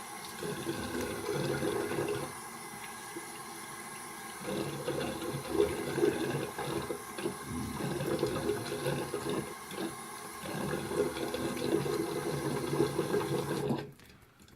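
Water running from a tap into a sink, with splashing as the face is rinsed with handfuls of water after a shave. It stops abruptly near the end.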